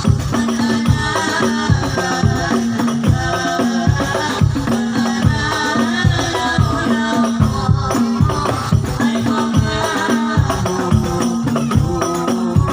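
Shalawat music: hand drums beat a steady, busy rhythm under a sung melody.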